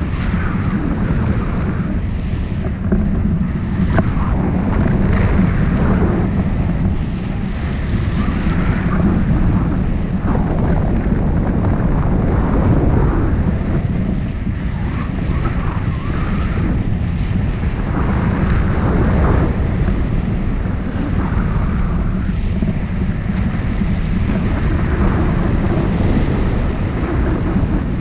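Airflow rushing over the microphone of a camera mounted on a hang glider's wing in flight: loud, steady wind noise.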